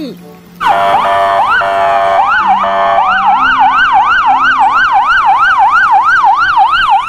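Police car siren starting about half a second in, first a mix of steady tones and slow sweeps, then switching to a fast yelp that rises and falls about three times a second.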